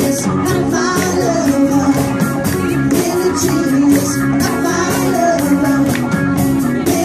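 Live cover band playing an upbeat rock song: electric guitar and a steady drumbeat, with vocals sung into microphones.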